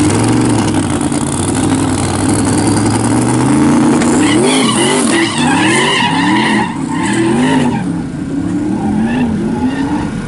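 Drag car's engine held at steady revs, then rising and falling in quick repeated surges with tyre squeal as its tyres spin on the line. The sound eases and draws away after about eight seconds as the car leaves down the strip.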